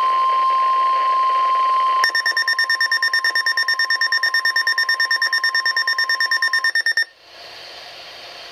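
NOAA Weather Radio alert: the steady 1050 Hz warning alarm tone, which signals that a warning message is about to be broadcast. About two seconds in, a rapidly pulsing higher-pitched electronic beep takes over and stops abruptly about seven seconds in, leaving faint radio hiss.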